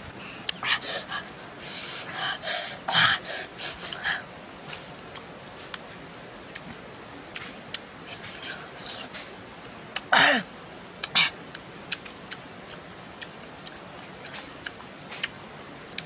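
Close-up eating sounds of a boy chewing green grapes: wet chewing, smacking and crunching in scattered short bursts. A short vocal sound falls in pitch about ten seconds in.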